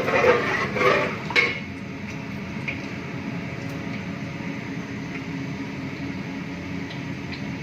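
A metal spoon clanking against a large heavy cooking pot several times in the first second and a half as mustard and fenugreek seeds are stirred in hot oil. After that a steady background hum carries a few faint, separate ticks: the seeds just beginning to pop.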